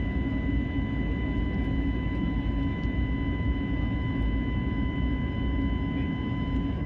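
Steady roar inside an airliner's cabin in the climb shortly after takeoff: engine and airflow noise, with a thin steady high-pitched hum over it.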